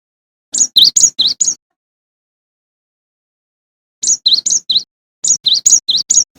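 Cinereous tit (gelatik batu) singing: three quick bursts of repeated high two-note phrases, each note dropping from a higher to a lower pitch, with complete silence between the bursts.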